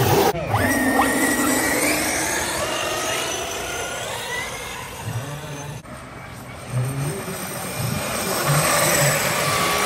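1/5-scale RC race trucks running, their motors revving up and down in rising and falling whines, with tyre and track noise underneath.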